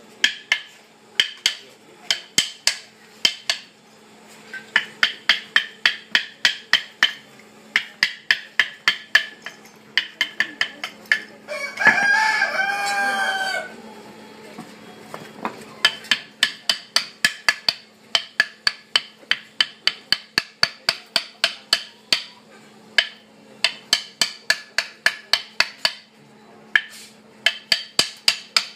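Wooden mallet knocking on a chisel cut into a block of wood, sharp knocks about three a second in runs with short pauses. About twelve seconds in, a rooster crows once, loudly, over the knocking.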